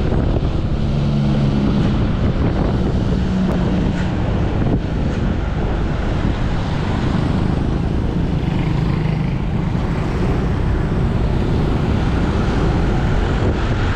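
Steady wind rush and road noise on a helmet-mounted microphone while riding a motorcycle, with a low engine hum rising out of it now and then.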